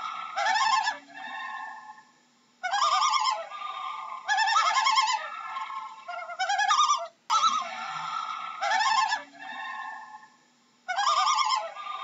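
Common loon calling: bouts of loud, quavering, wavering call phrases separated by two short pauses.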